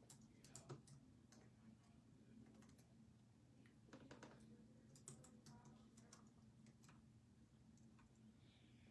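Faint, scattered clicks of typing on a keyboard, irregular and sparse, over a steady low hum.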